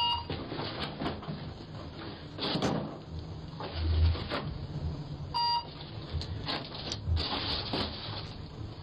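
A delivery driver handling a package on a porch: rustling and scuffing with a dull thump about four seconds in, and two short electronic beeps, one at the start and one about five and a half seconds in.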